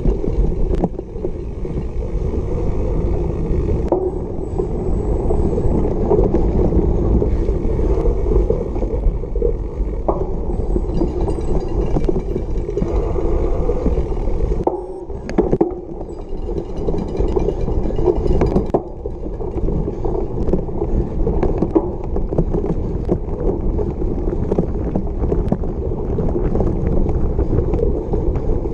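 Cyclocross bike ridden hard over bumpy grass: a steady rumble of the tyres and the bike rattling over the rough ground, easing briefly about halfway through.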